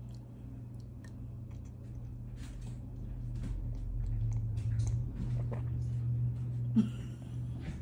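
A person sipping and swallowing hot chocolate from a mug, faint slurps and small mouth clicks over a steady low hum, with a brief louder swallow just before seven seconds in.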